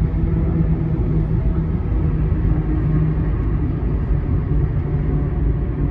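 Road and engine noise heard from inside a moving car: a steady low rumble with a faint engine hum.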